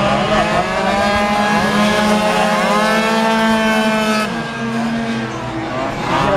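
Several tuned two-stroke racing scooters running hard on track, their engines overlapping as each rises and falls in pitch through acceleration and braking, with one climbing steeply near the end.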